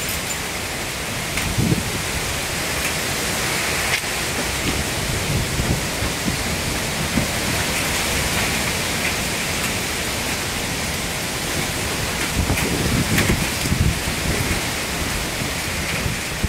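Heavy rain pouring down in a sudden flash storm, a steady hiss, with gusts of wind buffeting in low surges, strongest near the end.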